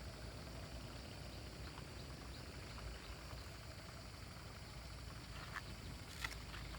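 Faint outdoor background: a steady low rumble and hiss, with a few short, high chirps or ticks in the second half, the sharpest about six seconds in.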